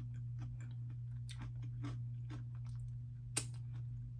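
A person chewing crunchy Cheetos pretzels with the mouth closed: a quick, irregular run of small crunches, with one sharper, louder snap a little over three seconds in.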